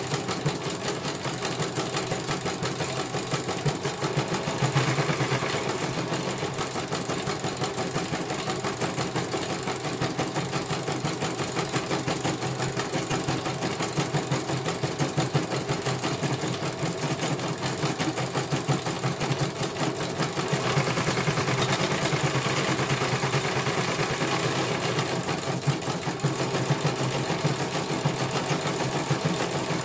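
CNY portable computerized embroidery machine, running with its outer casing off, stitching steadily: a fast, even chatter of needle strokes over the hum of its motor.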